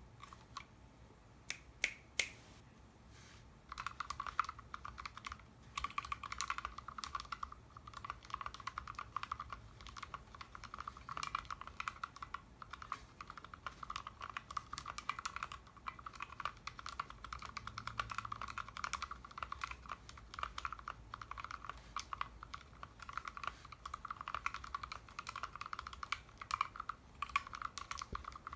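Typing on a custom 60% mechanical keyboard with Outemu Vintage Black switches on 62g springs, lubed with Tribosys 3204, PCB-mounted with no plate in a foam-dampened case. A few single keystrokes come first, then continuous steady typing from about four seconds in.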